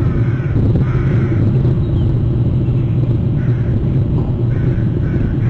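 A steady low rumble, with a bird calling in short repeated calls of under half a second each, about five of them.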